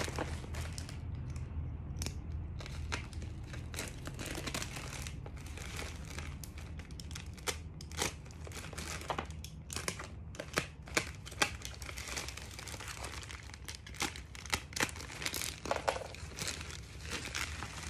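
Plastic courier mailer bag crinkling and tearing as it is slit open with a utility knife, irregular crackling with a few sharper snaps about halfway through.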